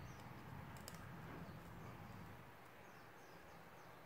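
Near silence: faint background with a faint click about a second in and a few faint distant bird chirps.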